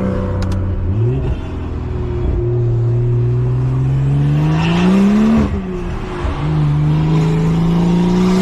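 BMW 340i's B58 turbocharged inline-six, exhausting through an open dump, pulling under acceleration. Its pitch climbs steadily for about three seconds, falls away sharply around five seconds in, then climbs again.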